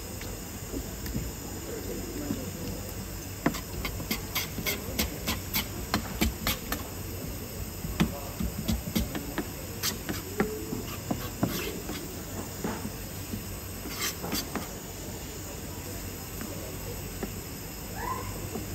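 Steady fish-market background hiss and hum, with runs of sharp clicks and taps through the middle and a short rising squeak near the end.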